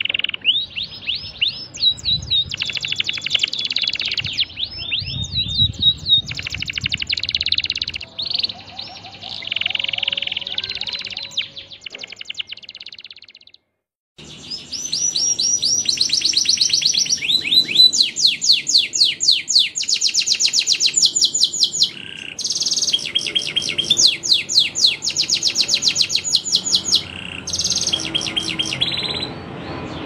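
Domestic canary singing a long, varied song of rapid trills and rising whistled notes. The song breaks off briefly near the middle, then another bout begins.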